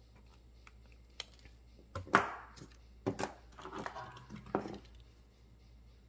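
Flush cutters snipping 18-gauge copper wire: a few sharp clicks, the loudest about two seconds in, with a couple more about a second later, then small clicks from handling the cutters and wire.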